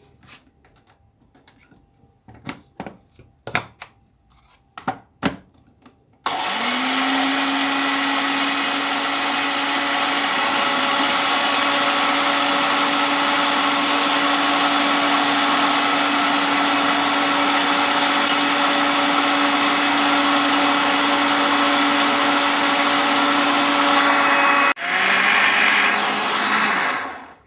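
A few knocks and clicks, then an electric grinder's motor starts with a brief rising whine and runs steadily, grinding flaxseed. Near the end it cuts out for an instant, runs on at a lower pitch, then stops.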